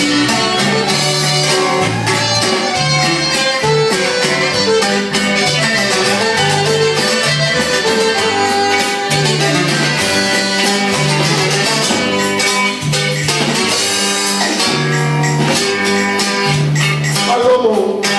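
Live norteño band playing an instrumental break: button accordion leading over bajo sexto, electric bass and drums, with the bass walking an even, bouncing line.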